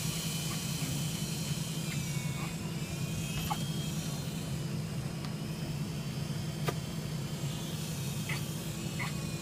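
Small remote-control toy helicopter's electric motor and rotors buzzing steadily, with a faint high whine and a single sharp click about two-thirds of the way in.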